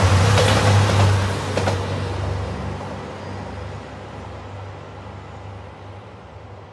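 JR Shikoku 2700 series diesel train passing close by, its wheels clacking over rail joints over a low engine hum. The clacks stop about two seconds in, and the train's sound fades steadily as it runs away into the distance.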